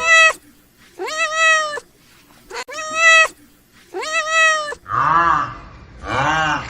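Domestic cat meowing: the tail of one meow at the start, then three clear, high meows about a second and a half apart. From about five seconds in, a lower, buzzier repeated call of another kind takes over, sounding twice.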